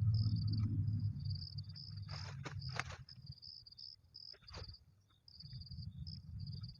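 Insects chirping in a steady, pulsing high trill, with a few short clicks or rustles at intervals. A low rumble at the start fades within the first second or so.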